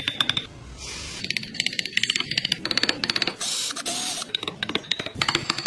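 Rapid runs of sharp clicking and tapping from hand tools working wood, with a brief hiss of scraping or sanding a little past the middle.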